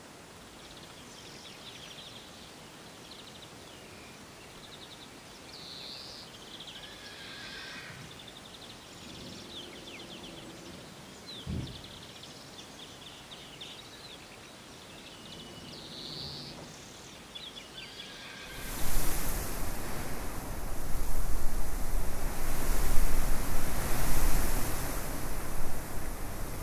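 Quiet outdoor ambience with a few short high calls and a single low thump about halfway, then, about two-thirds of the way in, a sudden loud rush of wind buffeting the microphone over a barley field, with a deep rumble, that goes on to the end.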